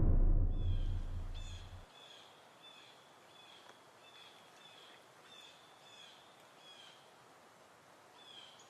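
A deep drum hit fades out in the first two seconds. After it come faint, short, high chirps repeated about twice a second, likely a small bird calling.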